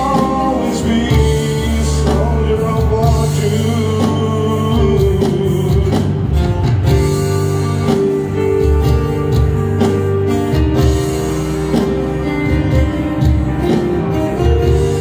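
Live band playing through a PA: a man singing over acoustic and electric guitar and keyboard, with sustained held notes and a steady bass line.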